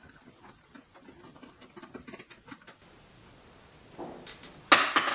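Allen key working the screws of a sheet-steel tank casing panel: a run of small, light clicks and ticks, then a louder scraping noise lasting about half a second near the end.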